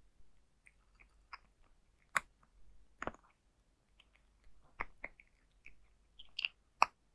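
Cat crunching dry kibble from a bowl, close up: irregular sharp crunches a few times a second, the loudest about two seconds in, about three seconds in, and near the end.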